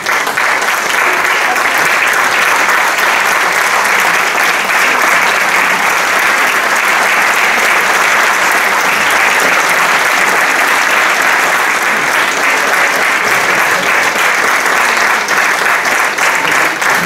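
Sustained applause from many people clapping, thinning into separate claps near the end.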